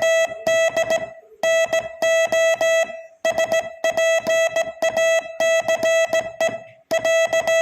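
Morse code sent as a single steady beep tone keyed on and off in quick dots and longer dashes, at a little over 20 words per minute, with short pauses between words about a second in, about three seconds in, and near the end.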